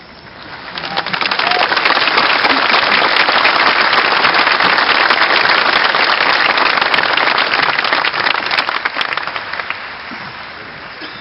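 Audience applauding: a dense patter of many hands clapping that swells up about a second in, holds, and dies away near the end.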